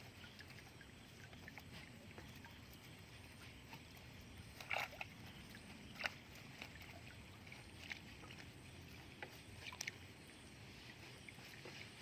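Faint lapping of creek water, with a few brief sharp sounds, the clearest about five, six and ten seconds in.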